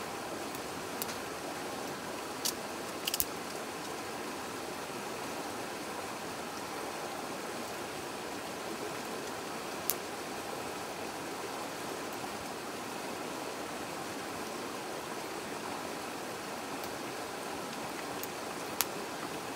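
Split kindling burning in a metal fire pit, crackling with a few sharp pops, including a quick cluster about three seconds in, over the steady rush of a river.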